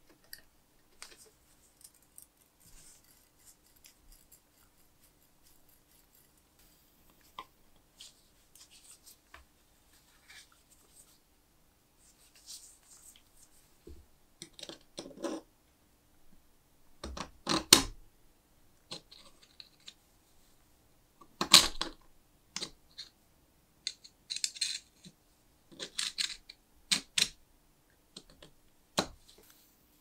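Small steel parts of a spark lighter being handled and fitted together by hand: scattered light clicks, taps and scrapes of metal on metal, with a few sharper clicks in the second half.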